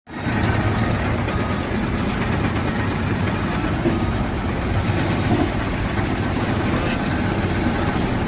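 Heavy diesel engine of construction machinery running steadily.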